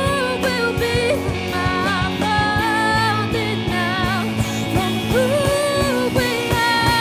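Rock band playing live with a singer: sung melody over steady drum hits and sustained instruments.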